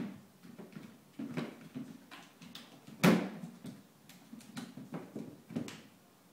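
Clear plastic storage box and its snap-on lid knocking and rattling as a cat paws and pries at the lid: a string of irregular clatters, the loudest knock about three seconds in.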